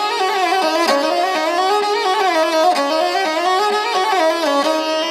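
Sarangi, the Indian bowed string instrument, playing a melody that slides and bends in pitch over steady held drone tones. Near the end the melody settles onto a long held note.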